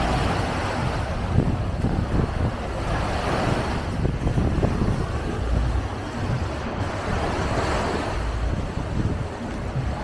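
Wind buffeting the microphone in a heavy, uneven rumble, over the hiss of surf washing up the shore in swells every few seconds.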